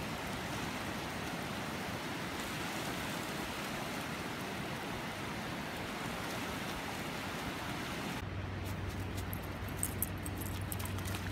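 Shallow surf washing steadily onto a flat sandy beach, heard as an even hiss. About eight seconds in the sound changes abruptly to a low steady hum, with a few sharp clicks a second or two later.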